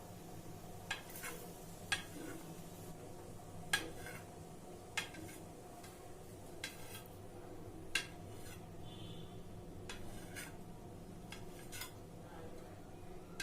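A metal utensil clinking against a dish, about ten sharp clinks at irregular intervals over a faint steady hum, as the yolks of boiled eggs are separated from the whites.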